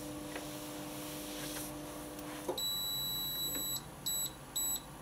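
Hotpoint Aquarius+ FDW70 dishwasher buzzing steadily, then the buzz cuts off with a click about halfway through. The control panel then beeps: one long, high beep followed by two short ones.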